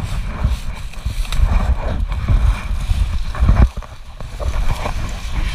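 Rumbling handling noise on a helmet-mounted camera as a fallen dirt bike is heaved upright, with scattered thumps and a heavy thump about three and a half seconds in.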